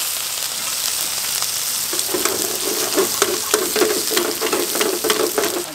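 Curry leaves sizzling in hot oil in a metal pan, a steady hiss. From about two seconds in, frequent sharp crackles and pops come through as the leaves spit in the oil.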